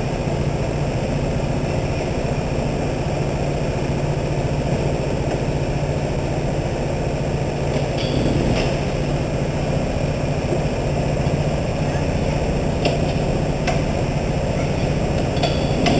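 Go-kart engines idling steadily as the karts sit waiting on the grid, a constant low hum and rumble, with a few light clicks or knocks around the middle and near the end.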